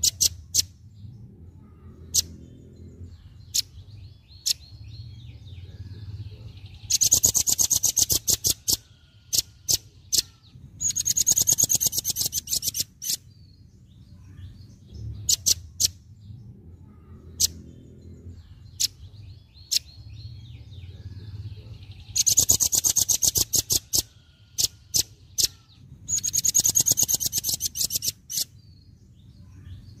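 Velvet-fronted nuthatch (rambatan) calling: sharp, high single chirps scattered throughout, and four bursts of fast, hard chattering trills about two seconds each.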